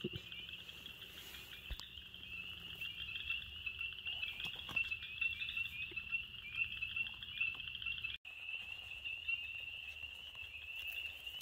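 Chorus of frogs, ornate chorus frogs among them, calling as a dense run of high, quick peeps. The sound drops out for an instant about eight seconds in, and a similar high frog chorus carries on.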